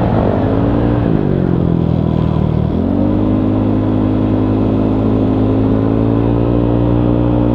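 Yamaha Aerox 200cc scooter engine through an MTRT EVO 2 stainless aftermarket exhaust while riding. The revs fall for the first couple of seconds, then jump up under throttle about two and a half seconds in and hold steady and high.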